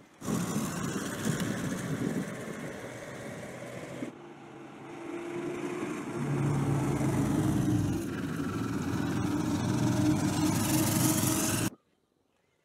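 Engine of an eight-wheeled armoured personnel carrier running as it moves along, with a steady engine hum that grows louder. The sound changes abruptly about four and eight seconds in, and cuts off suddenly shortly before the end.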